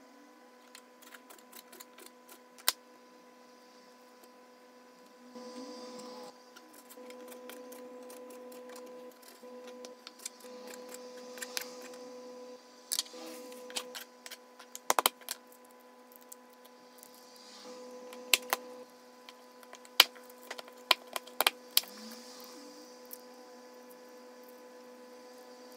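Irregular sharp taps and clicks of a kitchen knife against a plastic cutting board as raw sausage meat is cut into chunks, with a steady hum underneath.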